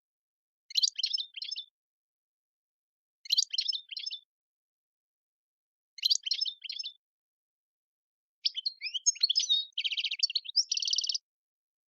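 European goldfinch singing: three short, high twittering phrases about two and a half seconds apart, then a longer phrase that ends in buzzy trills.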